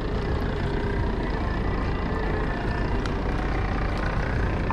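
Yamaha 115 outboard motor idling steadily, a low, even rumble.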